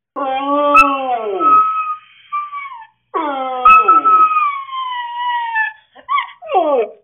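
Husky howling: two long howls, each sliding down in pitch at the start and then holding, followed near the end by a few short yips that drop in pitch.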